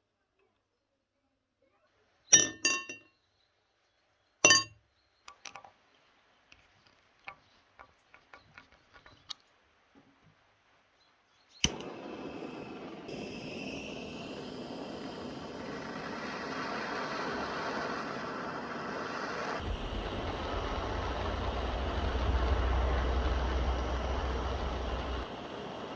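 Two sharp, ringing metallic clanks, then lighter clicks and taps of metal being handled. About halfway through a steady outdoor background noise takes over, with a low rumble near the end.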